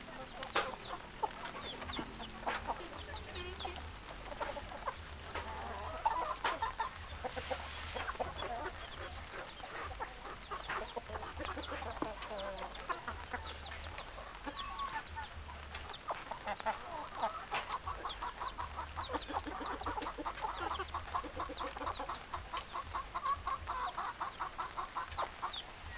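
Chickens clucking: many short, overlapping hen calls, turning into a fast, steady run of clucks in the second half.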